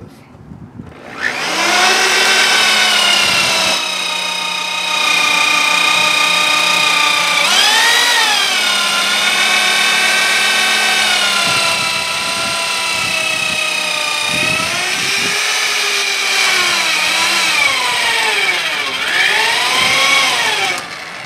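Genesis 1/2-inch electric drill boring an angled hole with a 5/8-inch auger bit: a steady motor whine that starts about a second in, sags in pitch and recovers three times as the bit loads up, and stops near the end.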